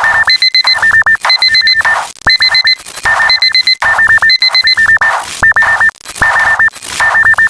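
Electronic alarm beeping in quick runs of four, the pattern of a digital alarm clock: two beep pitches, a lower and a higher, overlap, each run repeating about once a second over a rough hiss.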